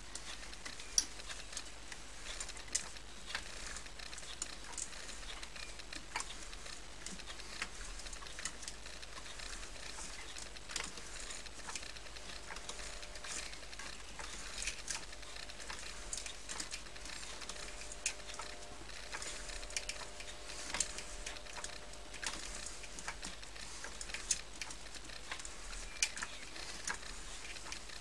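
A 7x12 mini lathe running slowly, winding wire into a coil spring on a mandrel in its chuck, with the change wheels driving the feed: a faint steady running noise with frequent irregular light ticks and clicks. A faint whine joins for several seconds around the middle.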